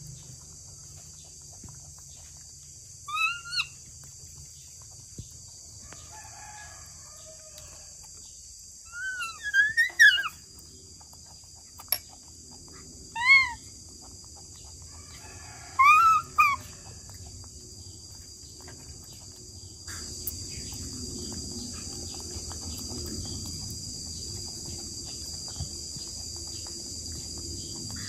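Short, high animal calls that rise and fall, loud and close, coming in about five brief bunches of one to three calls at irregular moments. Under them runs a steady high buzz of insects.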